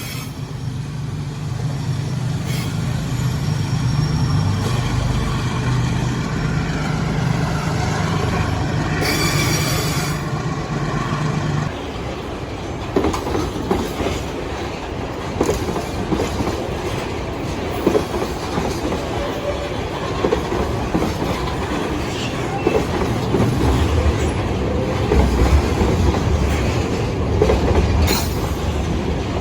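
Diesel freight train passing. The locomotives' engines hum steadily for about the first twelve seconds, then the wagons roll by with a continuous clatter and knocking of wheels on the rail.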